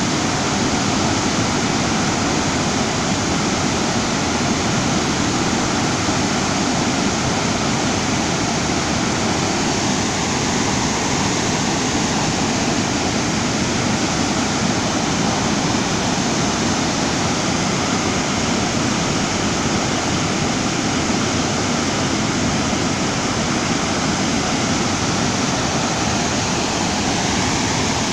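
Muddy monsoon floodwater spilling through the open spillway gates of a hydroelectric dam and churning in the river below: a loud, steady rush of water that never lets up.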